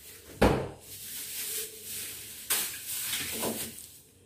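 Refrigerator door thudding shut about half a second in, followed by a few clattering knocks of kitchen things being handled on the counter.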